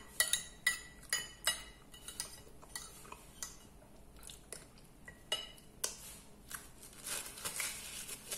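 Metal spoon clinking and scraping against a plate, with a quick run of ringing clinks in the first two seconds and a few scattered ones after, as the last food is scraped up. Near the end a paper napkin rustles.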